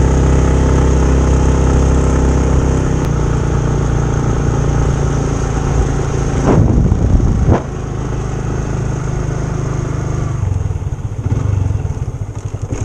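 Motorcycle engine running under way while the bike is ridden uphill. About six to seven seconds in, the revs swing up and down twice, and after that the engine runs quieter.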